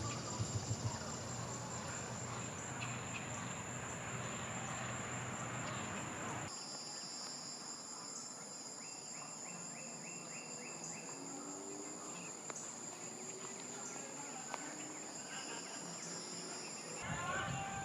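Evening insect chorus: a steady high-pitched trill, with a second, slightly lower trill joining about six seconds in and stopping about a second before the end. A low background rumble underneath cuts out abruptly about six seconds in and comes back near the end.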